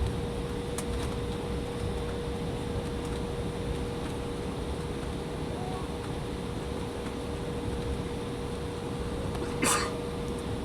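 Steady cabin noise inside an Embraer ERJ-175 before takeoff: the engines running at low power with the air-conditioning rushing and a steady hum. A short rustle or clunk comes near the end.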